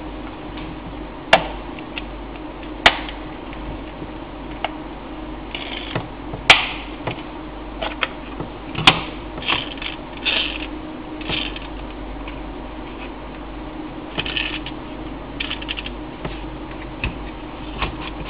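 Hollow plastic alarm-clock casing being handled: sharp plastic clicks and snaps at irregular intervals as the battery cover and shell parts are worked and fitted together, with short scraping rubs between them. A steady low hum runs underneath.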